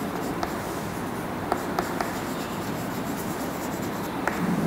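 Chalk writing on a chalkboard: a steady scratching as letters are written, with a few sharp taps of the chalk against the board.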